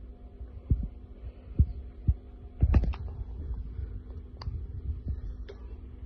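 A few soft, low thumps and some light clicks, the busiest cluster about two and a half to three seconds in, over a steady low background hum.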